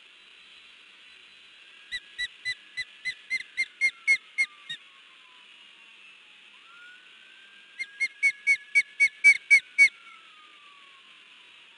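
Osprey alarm calling: two runs of about ten sharp, whistled notes each, the first about two seconds in and the second about eight seconds in, each run growing louder as it goes.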